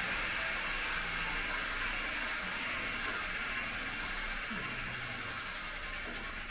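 A steady rushing hiss like blowing air, with a faint thin high whine on top, easing off slowly toward the end.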